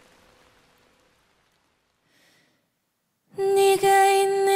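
A faint hiss fades to near silence over the first second or so. Then, about three seconds in, a woman's solo voice comes in loudly, singing long held notes.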